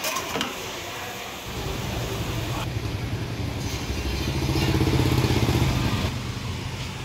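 A motor vehicle engine running close by in street traffic. It rises steadily to its loudest about five seconds in, then fades.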